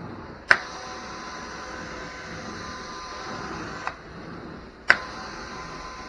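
Carpet extraction wand in a hot water extraction stroke over the steady suction of the extractor. A sharp click about half a second in is followed by a spraying hiss with a faint whistle for about three seconds, which stops with a lighter click; the same happens again about five seconds in.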